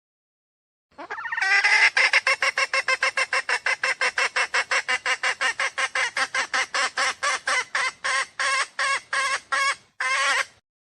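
Jungle fowl lure call: a rapid, even run of short, harsh clucking notes, about four a second. The run opens with a rising note, slows slightly toward the end, and finishes with one longer note.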